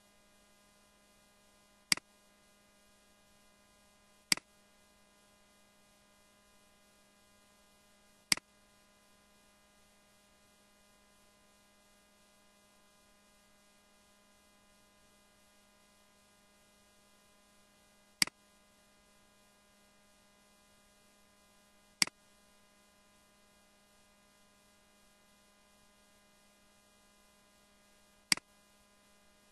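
Six sharp computer mouse clicks at irregular intervals over a steady low electrical hum.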